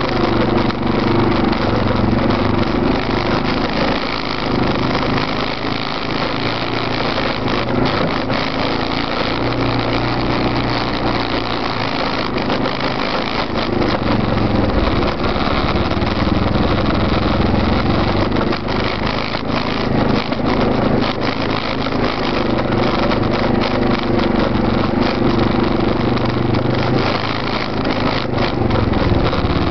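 Arctic Cat 650 H1 ATV's single-cylinder engine running close up from its rear rack, its pitch rising and falling as the throttle opens and closes over rough ground, with knocks and rattles from the jolting ride. The following Arctic Cat 650 V2 ATV's engine runs behind it.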